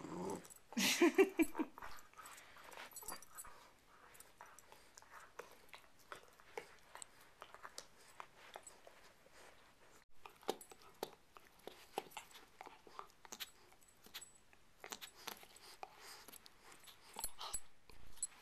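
Bernese Mountain Dog puppy chewing and mouthing a toy bowling pin: scattered irregular clicks and taps of teeth on the pin. There is a brief pitched vocal sound about a second in, the loudest moment.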